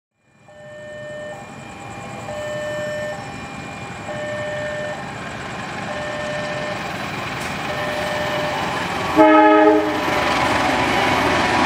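GE-built diesel-electric locomotive approaching and passing, its engine and wheel noise growing steadily louder, with one short horn blast about nine seconds in. A warning tone repeats about every two seconds underneath.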